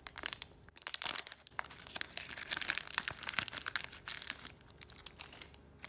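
Metallic foil trading-card pack crinkling and crackling as fingers work it and tear it open, a dense run of sharp little crackles through the middle seconds that thins out near the end.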